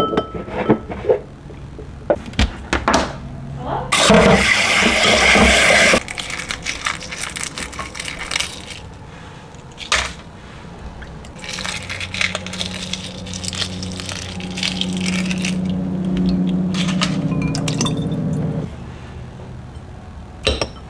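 Kitchen sounds of handling hard-boiled eggs: eggs knocking and clinking against a glass bowl, a kitchen tap running into a stainless steel sink in two spells, a short one about four seconds in and a longer one later on, and eggshell cracking as the eggs are peeled.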